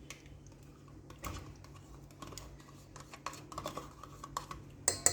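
Light, irregular clicking and tapping of a spoon and plastic yogurt pot against a mixing bowl as yogurt is scraped in, with a louder knock or two near the end.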